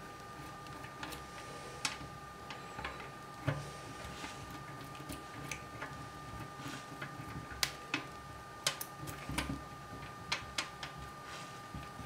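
Small brush scrubbing a 3D-printed plastic part in soapy water on a stainless-steel sink, with irregular clicks and taps as the brush and part knock against the metal.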